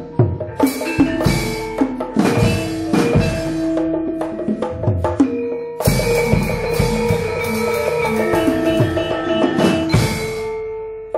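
Gamelan accompaniment for a wayang golek puppet dance: ringing tuned metal percussion over frequent sharp drum strokes. There are heavier struck accents about six seconds in and again near ten.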